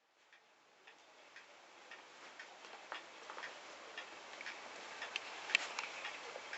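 Light ticking clicks, roughly two a second and slightly uneven, over a steady hiss that fades in at the start.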